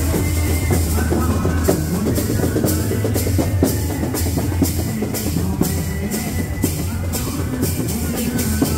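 Loud amplified band music with a steady drum-kit beat and heavy bass, played through horn loudspeakers on a procession band cart.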